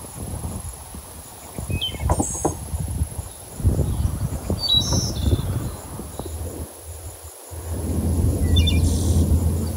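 Outdoor ambience: short bird chirps every second or two over a steady high insect whine, with a low rumbling noise underneath that grows loudest near the end.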